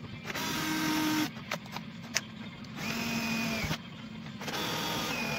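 Cordless DeWalt drill boring into a flat metal bar, running in three short bursts with a few sharp clicks between them.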